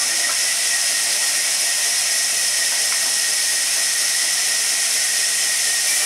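Sawmill band saw running steadily, a loud even hiss with a thin high whine over it.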